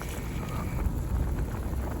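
Strong wind buffeting the microphone: a low, uneven rumble.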